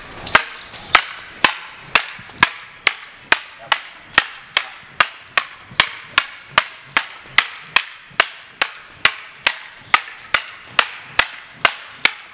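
Two bamboo lathi staves clacking together in a steady strike-and-block drill, about two sharp knocks a second.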